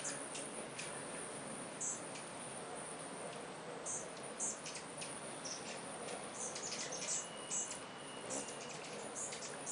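Hummingbirds at a feeder giving rapid, high, sharp chips and squeaks in scattered bursts, busier in the second half, over a steady buzzing hum like a swarm of bees.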